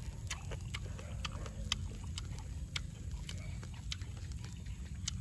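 Close-up mouth sounds of a person chewing grilled pork head: irregular wet smacks and crunchy clicks, roughly one or two a second, over a steady low rumble.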